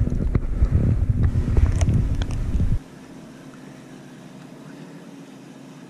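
Wind buffeting the microphone, loud and gusty with a few light clicks, then cutting off abruptly about three seconds in to a faint steady hum.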